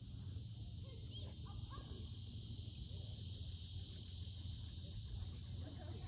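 Steady, high-pitched chorus of insects such as crickets, with a low steady rumble beneath it and a few faint chirps.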